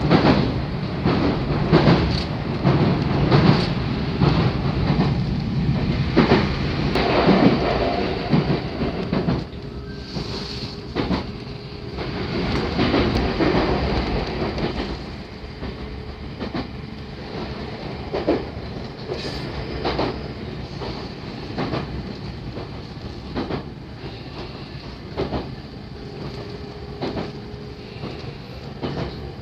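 JR 313 series electric train running, heard from inside the carriage: a steady rumble with the wheels clicking over rail joints. It is louder for the first ten seconds or so, then drops to a quieter run.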